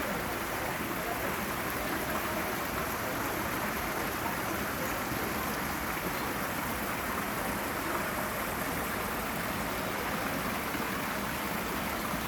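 Many small fountain jets splashing steadily into a long garden pool, an even, unbroken rush of falling water.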